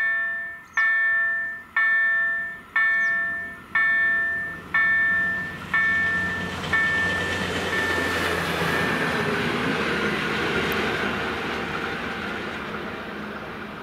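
A Polish level-crossing warning bell rings about once a second, each electronic bell strike ringing out and decaying. It comes from an EDE-1 signal driven by an EDG-2005 sound generator, and it stops about 7 seconds in. A train then rolls past, its rumble swelling and slowly fading.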